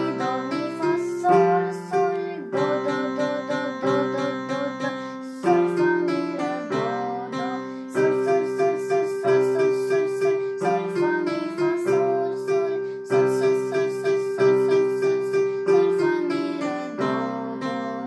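A simple children's tune played on an electronic keyboard with the left hand, notes struck and held in a steady rhythm, while a child sings the melody along in solfège note names.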